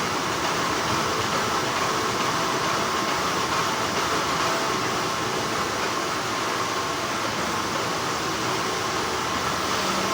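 Steady, continuous hum of textile factory machinery, even in level with no breaks.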